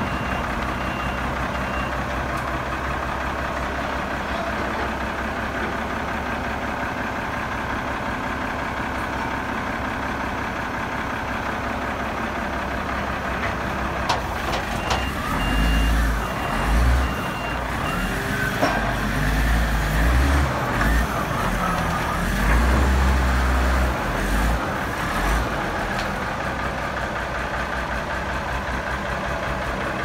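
Komatsu WA380 wheel loader's six-cylinder diesel engine idling steadily. A backup alarm beeps at the very start and again for a few seconds midway, and a few louder low rumbles come through the middle.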